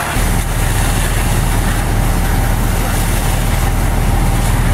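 Steady low drone of a fire engine's diesel running to drive its pump, under a constant rushing noise from the hose streams and the burning house.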